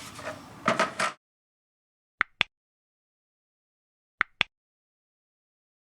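Faint room noise with a few handling clicks, cut off abruptly about a second in. Then, in dead silence, two pairs of short, sharp clicks about two seconds apart.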